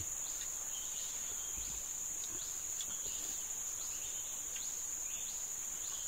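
Steady high-pitched drone of forest insects, with faint short chirps every second or so.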